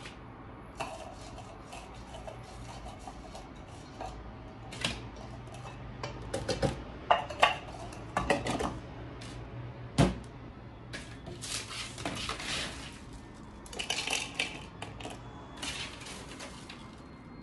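Plastic food-chopper bowl and crisp toasted bread cubes being handled: scattered clicks and clatters as the bowl is filled and fitted onto the chopper base, with one sharp knock about ten seconds in.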